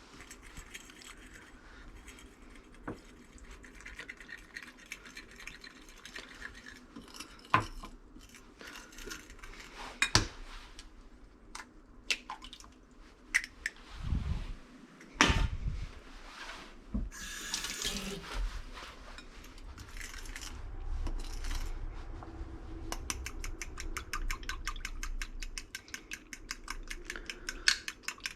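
Kitchen handling sounds while making pancakes: utensils and dishes clinking and knocking, with a short run of tap water. Near the end comes a fast, even clicking.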